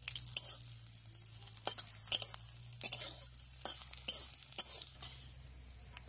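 Vegetable pieces sizzling in hot oil in an iron kadai while a steel spatula stirs them, scraping and clinking sharply against the pan about seven times.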